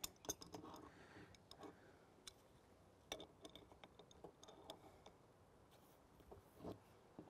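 Faint, scattered metallic clicks and ticks of two wrenches on a hydraulic fitting as a JIC fitting is tightened onto a quick coupler, an adjustable wrench turning it against a backer wrench.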